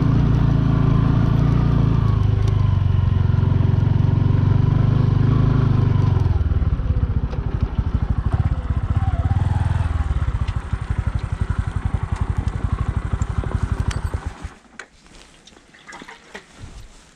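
Bajaj Boxer 150's single-cylinder four-stroke engine running steadily, dropping to a slow, pulsing idle about six seconds in, then switched off about fourteen seconds in. A few faint clicks follow.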